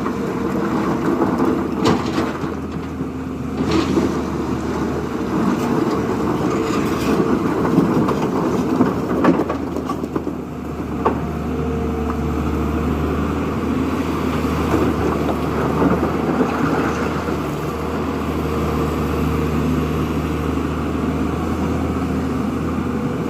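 Heavy diesel engine of working machinery running steadily, with a few short metallic clanks.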